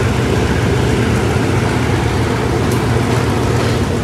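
Steady rumble of a passenger train running, heard from inside the carriage, with a faint click near the end.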